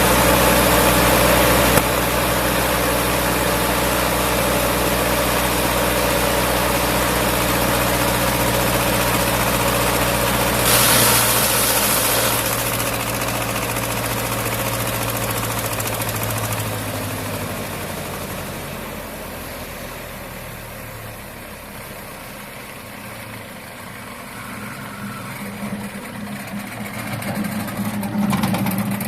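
Diesel-engine wood chipper running at a steady speed, with a brief loud rushing burst about eleven seconds in. Past the halfway point the engine note drops and the sound quietens, swelling again near the end.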